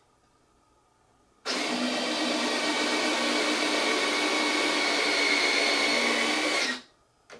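JP Hobby electric landing-gear retracts of a large model jet whirring steadily as all three gear legs fold up. The whir starts about a second and a half in, runs about five seconds and stops sharply.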